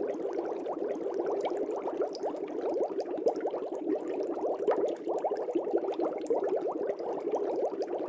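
Aquarium air bubbles bubbling steadily through water: a dense, unbroken stream of many small bubble blips a second, each rising quickly in pitch.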